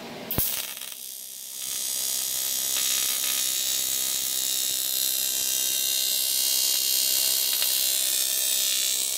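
TIG welder's arc running on an aluminum wheel: a sharp click about half a second in, then from about a second and a half a steady, even buzzing hiss.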